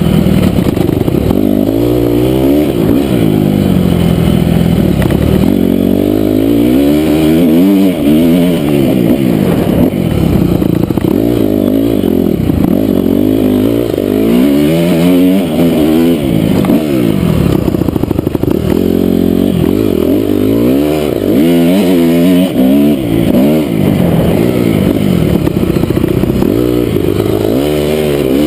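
2008 Honda CRF250R's single-cylinder four-stroke engine revving up and falling back again and again as the rider works the throttle and gears around a dirt track.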